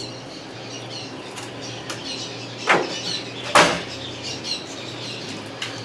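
A wooden slat scraping and knocking against a wooden post as it is handled, twice about a second apart, the second longer and louder.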